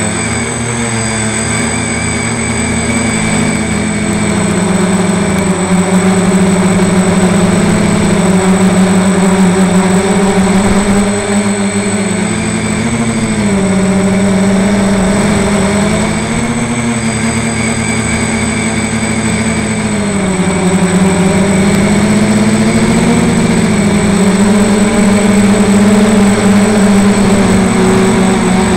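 Multicopter's electric motors and propellers buzzing loudly, heard from a camera mounted on the copter itself; the pitch swells and sags as the motors speed up and slow down. A thin steady high whine runs under it.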